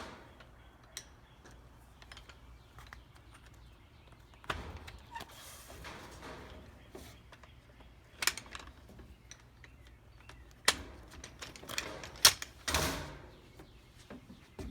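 Parts of a Kermit chair's wooden frame being handled and fitted onto their studs: scattered knocks and clicks of wood on wood, with a few brief rustling handling noises.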